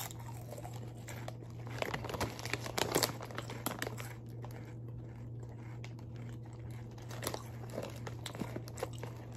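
Crunchy chips being chewed and a foil chip bag crinkling in the hands, in irregular crackles that are busiest about two to four seconds in, over a faint steady low hum.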